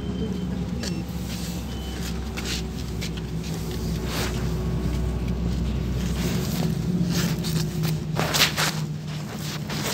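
Cabin of a LiAZ 5292.67 city bus on the move: a steady low engine and drivetrain hum with scattered rattles and clicks from the interior, and a brief louder rush of noise about eight seconds in.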